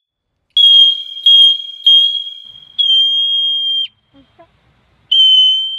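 Hoary marmot giving shrill, whistle-like alarm calls: three short calls in quick succession, then a longer one, and after a short pause another long call near the end.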